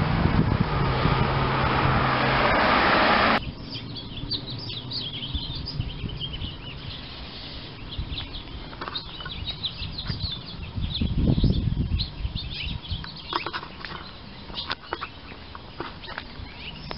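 Tiny songbirds chirping in the trees, many quick high chirps overlapping, which the listener takes for little finches. It opens with a loud rush of wind noise on the microphone that cuts off suddenly about three seconds in, and a low gust comes past near the middle.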